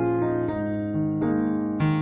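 Background music: a slow keyboard melody in a piano-like tone, with a new note struck roughly every half second.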